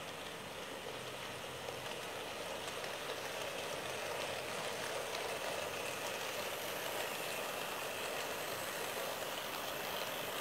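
Model train of several diesel locomotives running along the track, a steady mechanical whirring rumble that grows slightly louder as it passes close by.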